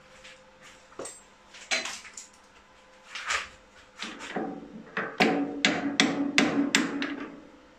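Metal clicks and knocks at a stopped lathe's four-jaw chuck as the chuck key is worked on the jaws, ending in a quick run of about seven ringing metallic knocks near the end.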